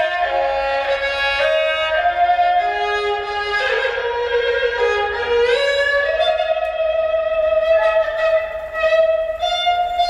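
Background music: a bowed string instrument playing a slow melody with sliding notes.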